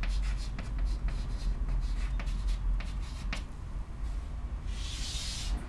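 Chalk writing on a chalkboard: a run of short taps and scratches as letters are written, then one longer scraping stroke near the end as a line is drawn under the heading.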